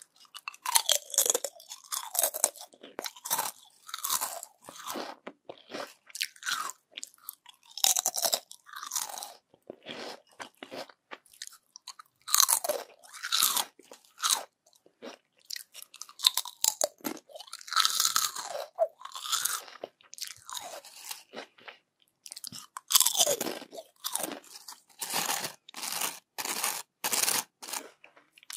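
Crispy yam chips being bitten and chewed: sharp, irregular crunches that come in clusters, one mouthful after another, with short pauses between.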